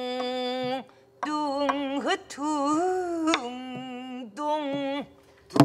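A woman singing pansori in a full, wavering voice: a long held note, then sliding, bending phrases. Sharp strokes on a buk barrel drum come in a few times, the loudest right at the end.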